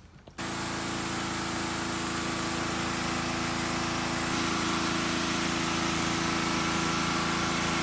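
Pressure washer running and spraying: a steady hiss of water over the even hum of its motor, starting abruptly just under half a second in.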